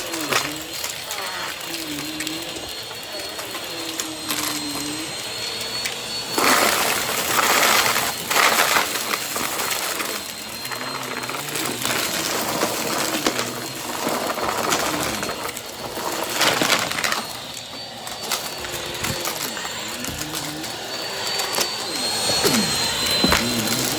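Vacuum cleaner running during vacuuming. Its motor whine holds steady while lower tones waver up and down, and there are a few louder rushing surges as it is worked back and forth.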